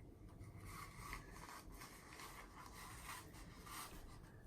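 Faint, irregular rubbing and scratching of small objects and packaging being handled.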